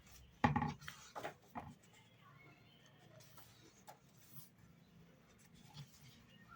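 Desk handling sounds: a few light knocks and rustles, the loudest about half a second in, then quiet scratching like a pen writing on paper.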